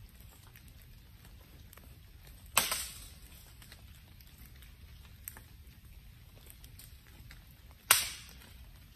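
Wood bonfire crackling, with two loud sharp cracks about five seconds apart and a small pop between them.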